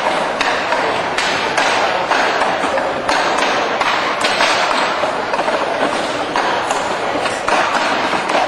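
Wooden Wing Chun training dummy (mook jong) being struck by hands and forearms: irregular wooden knocks and clacks of its arms and trunk, often in quick clusters, over steady background noise.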